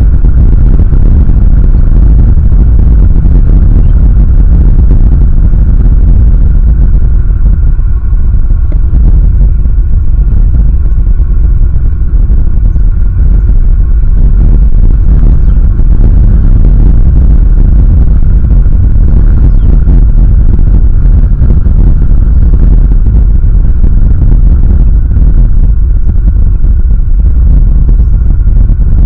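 Strong wind buffeting the outdoor eagle-nest camera's microphone: a loud, steady, low rumble.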